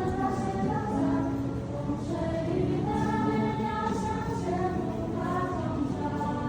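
Background music with a choir of voices singing sustained notes.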